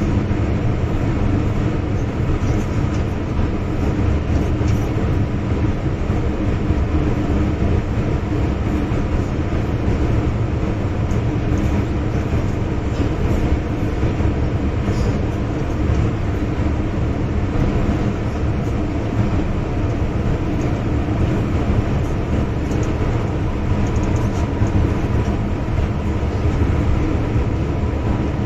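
Cabin noise inside an MTR M-Train running through a tunnel: a loud, steady rumble of wheels and running gear with a thin steady tone above it.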